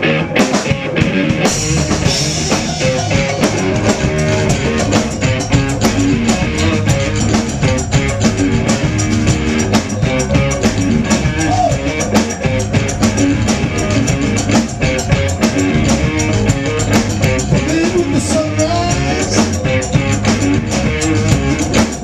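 Rock band playing live: electric guitar, bass guitar and a drum kit, the drums coming in fully in the first couple of seconds and keeping a steady rock beat.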